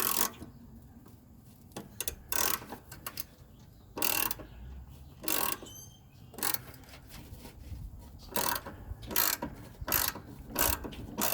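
Ratchet wrench turning the forcing screw of a two-jaw gear puller, clicking in about a dozen short strokes that come faster in the second half, as the puller works to free a rusted-on mower blade adapter.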